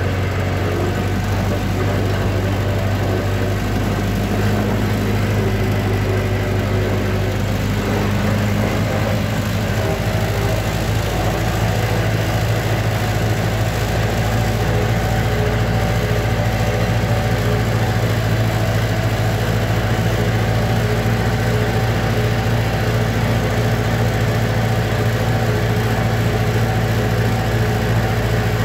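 Old tractor engine running steadily on the road, heard from the driver's seat as a constant low hum. Its note changes slightly about ten seconds in.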